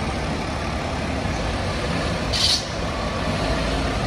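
FDNY fire engine's diesel running as it pulls out of the firehouse, with no siren, and a short hiss of air brakes about two and a half seconds in.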